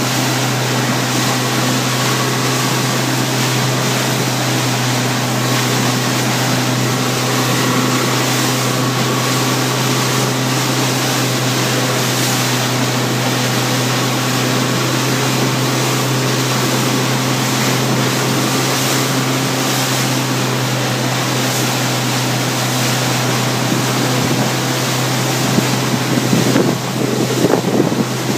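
Motorboat engine running steadily under way, a constant low hum, with wind buffeting the microphone and water rushing past the hull. The wind and water noise gets louder and rougher near the end.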